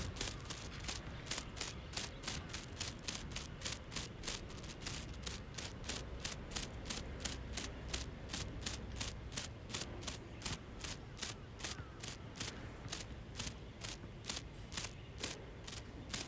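Fishing reel being cranked steadily, giving an even mechanical clicking about three times a second as line is reeled in, with a low wind rumble on the microphone.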